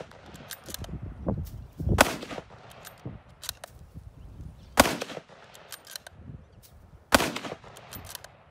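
Three rifle shots from a Ruger M77 Mark II Frontier bolt-action carbine in 7mm-08, about two and a half seconds apart. Between the shots the bolt is run quickly, with lighter metallic clicks as each empty case is ejected.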